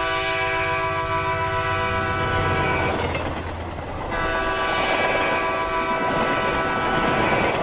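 Locomotive horn sounding two long blasts about a second apart over the steady rumble of a moving train. The second blast is still going at the end.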